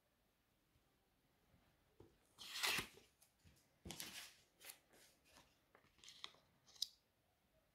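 Paper euro banknotes rustling and crinkling as they are handled on a table, in short bursts starting about two seconds in, the loudest just after that, with a sharp tick near the end.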